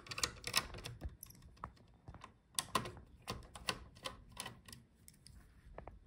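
Small screwdriver taking out the motherboard screws of a Dell Latitude 3140 laptop: a run of light, irregular clicks and ticks as the bit turns in the screw heads and taps the metal.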